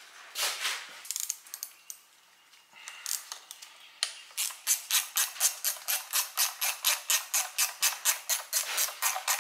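Ratchet wrench clicking in a steady rhythm, about four to five clicks a second, as a bolt on a flathead V8 block is wound out, after a few loose metal tool clinks.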